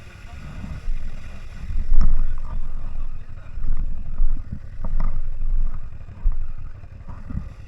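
CFMoto 1000 off-road vehicle running, its low rumble swelling and fading unevenly with wind buffeting the microphone. A few sharp knocks come through, about two, five and seven seconds in.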